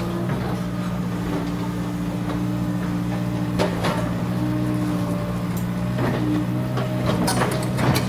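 Komatsu PC200 hydraulic excavator's diesel engine running steadily under working load as it swings and digs. Sharp knocks come about three and a half seconds in, once around six seconds, and in a cluster near the end.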